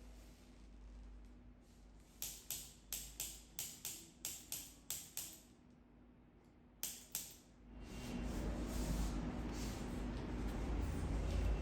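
A quick run of about eight sharp clicks, roughly three a second, then two more a moment later, followed by a steady rushing noise with a low rumble.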